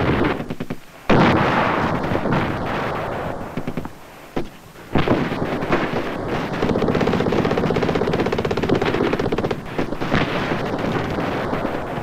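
Battle sounds: gunfire and blasts, with a sudden loud bang about a second in and another about five seconds in, then a long burst of rapid automatic fire lasting about three seconds.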